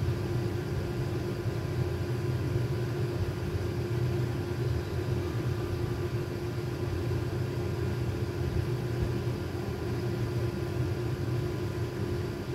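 A steady mechanical hum: a constant low rumble with a few unchanging tones over it.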